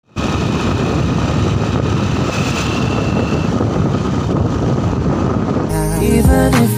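Riding noise from a motorbike on the move: wind rushing over the microphone along with the engine running steadily. About a second before the end it cuts to music with a beat.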